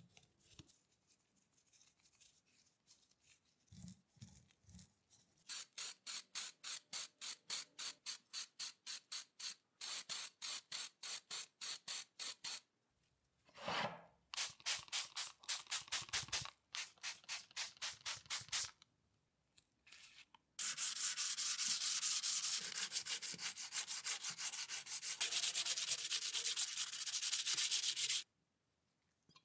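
Sanding sponge rubbing over a primed cast-iron coin bank plate in quick back-and-forth strokes, about four a second. Near the end it gives way to a long unbroken stretch of hissing rub.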